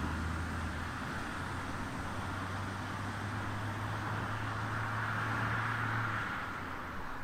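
An engine running with a steady low hum that drops away about six seconds in, over a rushing noise that swells slightly just before.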